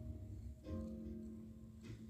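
Instrumental background music: slow, held chords, with a new chord coming in a little past halfway.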